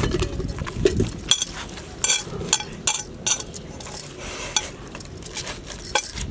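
Bangles jangling and clinking on both wrists, with hands and fingers knocking against a glass mixing bowl, while boiled potato, wheat flour and spices are mixed by hand into dough. The clinks are sharp and irregular, several a second, with soft squelching and rubbing between them.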